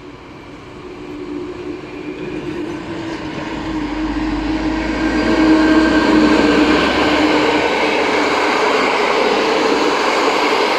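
EU07 electric locomotive hauling a passenger train past at speed: a steady hum growing louder as it approaches and goes by about six seconds in, then the continuous rumble of the passenger coaches' wheels on the rails.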